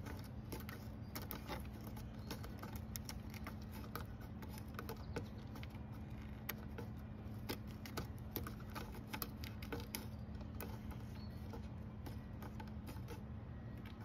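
Long-haired cat clawing a weathered wooden fence post with its front paws: rapid, irregular scratching and clicking of claws on dry wood.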